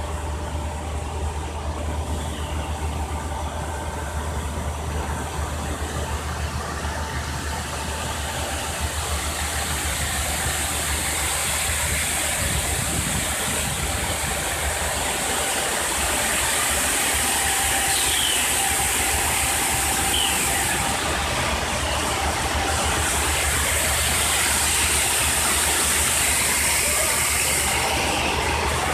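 Belt filter press running while dewatering mud: a steady low hum from its drive, with the hiss of water running off the rollers. The hiss grows brighter and a little louder after about eight seconds.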